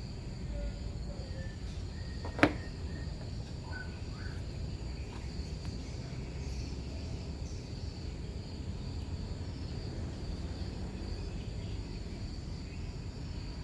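Steady background noise with a steady high-pitched whine, broken once by a single sharp click about two and a half seconds in.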